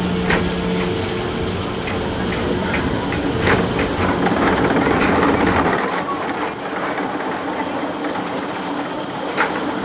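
Tomorrowland Transit Authority PeopleMover car running along its track: a steady mechanical hum and rumble with a few sharp clicks. The deep rumble drops away about six seconds in.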